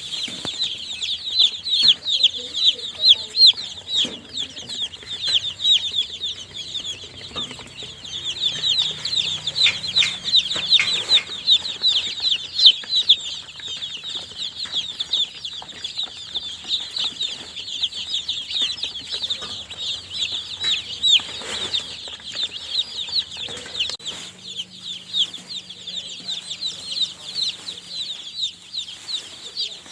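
A group of newly hatched baby chicks peeping continuously: many short, high, falling chirps overlapping one another.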